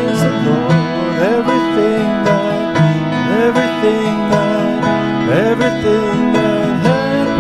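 Instrumental music in a country style, with plucked strings and guitar under a melody line that slides up into its notes. It is the introduction to a hymn, before the singing comes in.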